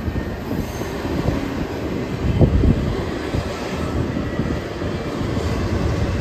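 Double-stack intermodal freight train rolling past: a steady low rumble of steel wheels on the rails and the cars' running gear, with one sharper knock about two and a half seconds in.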